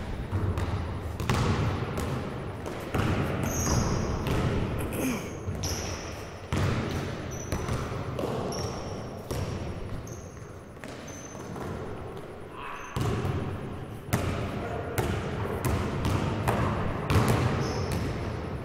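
Basketballs bouncing on a hard gym floor, a run of sharp thuds ringing in a large echoing hall, with short high squeaks scattered in between.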